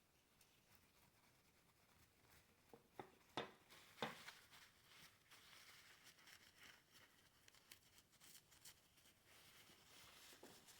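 Faint rubbing and scraping of a circuit board being wiped clean of solder flux, starting about two seconds in, with a few light clicks and taps between about three and four seconds in.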